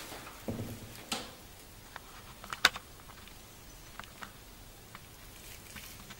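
Handling of a cardboard watch box and its packaging: a few soft rustles early on, then scattered light clicks and taps, the sharpest about two and a half seconds in.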